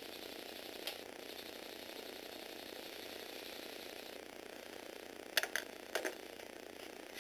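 Small electric motor and Lego Technic gear train whirring as the toy car drives, stopping about four seconds in. A few sharp clicks follow near the end.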